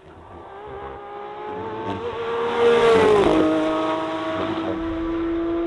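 Porsche 911 GT3 Manthey Racing's naturally aspirated flat-six at high revs as the car approaches and passes. The engine note grows louder, and its pitch drops sharply as the car goes by about three seconds in. It then holds lower and slowly rises as the car pulls away.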